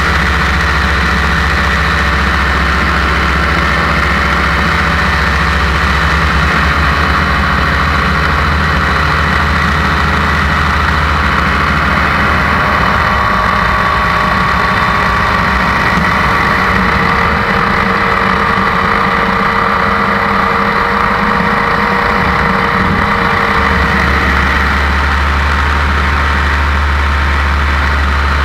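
Paramotor engine and propeller running steadily in flight, a loud, constant drone heard from the pilot's seat. Its deepest hum thins out for about ten seconds in the middle, then returns.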